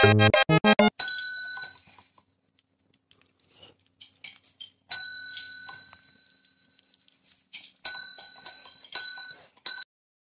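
Chrome service bell struck several times, each strike a bright ring that fades away: one about a second in, another near the middle, then a quick run of rings near the end that cuts off sharply.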